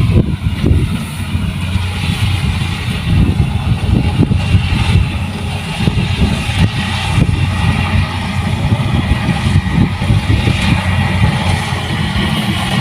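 Rice combine harvester's diesel engine running steadily under load, a loud, even low drone with a hiss of machinery above it.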